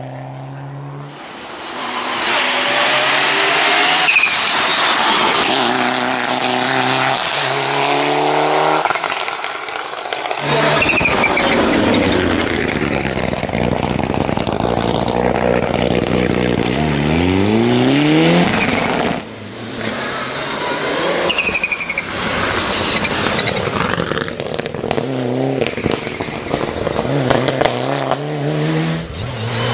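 Mitsubishi Lancer Evo IX rally car's turbocharged four-cylinder engine revving hard, climbing and dropping in steps through gear changes, with a long rising whine under full acceleration in the middle and some tyre squeal in the corners.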